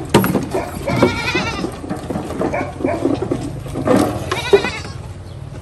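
Goats bleating: a wavering call about a second in and another about four seconds in, with scattered knocks between them.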